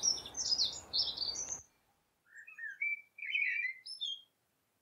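Garden songbirds singing: a quick high twittering over a faint hiss, both cutting off abruptly about a second and a half in, then a lower warbled phrase of a few notes.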